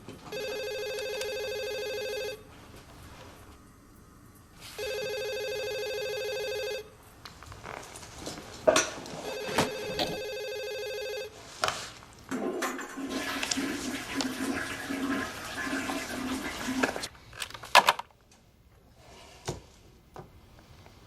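A telephone rings three times, each ring an electronic trill about two seconds long, repeating every four to five seconds, with a few sharp clicks near the third ring. Then comes about four seconds of rushing noise with a pulsing hum beneath it, which cuts off.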